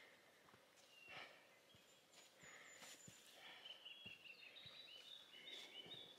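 Faint footsteps on a rocky dirt trail, about two steps a second. In the second half a small bird twitters in short high chirps.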